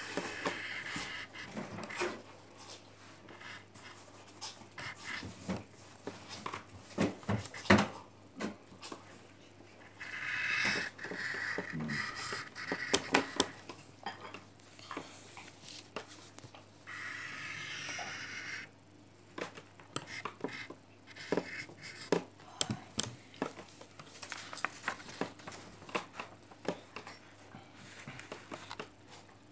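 Pencil scratching and rubbing on paper as a child draws and colours in, in spells of a second or two, with scattered taps and knocks on the tabletop.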